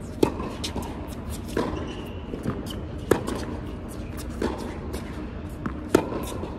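Tennis rally on an indoor hard court: sharp racquet-on-ball hits about every one and a half seconds, alternating loud and softer, with the loudest three about three seconds apart. Lighter knocks fall between the hits.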